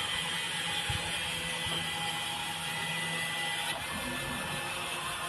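Pizza vending machine's built-in microwave oven running as it heats a pizza: a steady mechanical hum with a faint high whine. The low part of the hum stops a little less than four seconds in.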